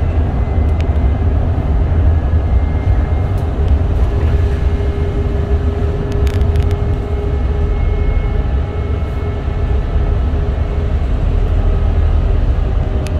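Inside a VDL Citea SLF 120 electric city bus on the move on a wet road: a steady low rumble of tyres and road noise, with faint, slightly shifting whines from the electric drive and a few small rattles.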